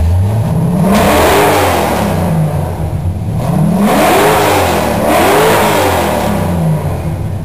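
V8-sounding car engine revved hard three times from idle, each rev climbing and falling back, with the exhaust being measured for sound pressure at the tailpipe.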